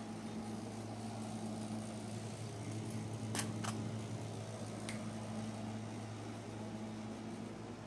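Steady low mechanical hum, with a few light clicks from a stainless-steel dog bowl of kibble being handled and set down on a wooden floor: two in quick succession about three and a half seconds in, and one more about a second later.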